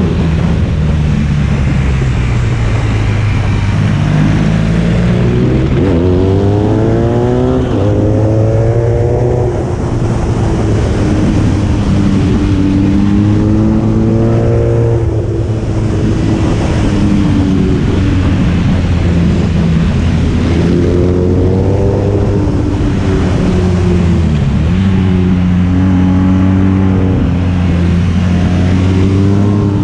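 Motorcycle engine accelerating and easing off on a winding road, its pitch rising several times as it pulls through the revs and falling between, with wind noise.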